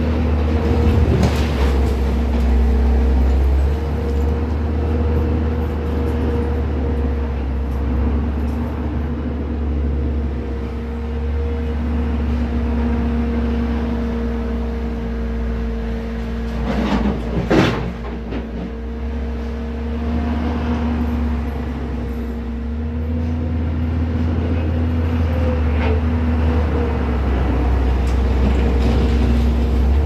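Bobcat compact track loader's diesel engine running steadily under throttle, with a brief loud clatter about halfway through as the bucket's load of dirt drops into the steel dump truck bed.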